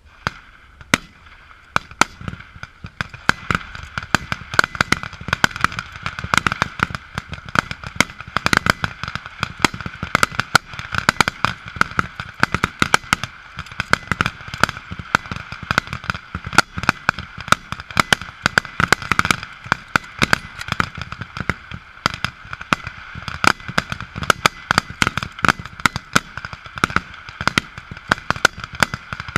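Many M1903 Springfield bolt-action rifles in .30-06 firing rapid fire along a firing line. Firing starts about a second in and builds into a constant, irregular crackle of overlapping shots, several a second and of varying loudness, with echo between them.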